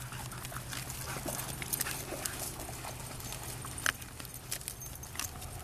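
A dog moving close by: irregular light clicks and taps over a steady low hum.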